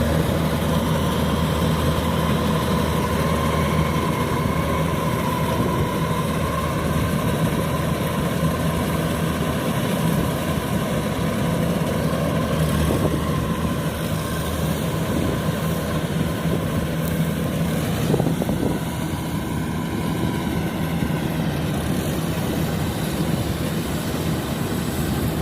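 Kubota DC93 combine harvester's diesel engine running steadily under load, with a steady high whine from its drive, while the machine is sinking and stuck in the deep mud of a flooded rice paddy.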